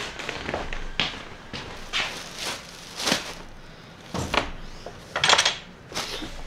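Clothes and a plastic bag being handled on a desk: rustling and crinkling in a string of short bursts, the loudest about five seconds in.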